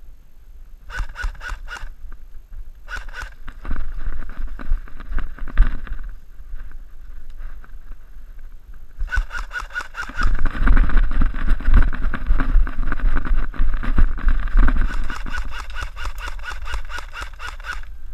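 AK-style airsoft electric rifle firing: a short burst about a second in, a couple of shots around three seconds, then long strings of rapid fire from about nine seconds on. Heavy low thumps run underneath the later firing.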